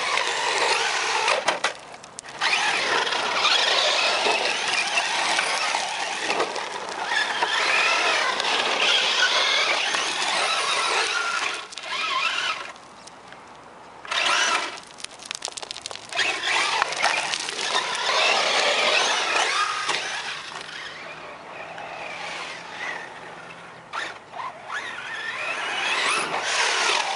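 Thunder Tiger EB4 G3 electric RC truck's motor and drivetrain whining, rising and falling in pitch as the throttle is worked, with tyres churning loose gravel. The whine drops away briefly a few times as the throttle is let off.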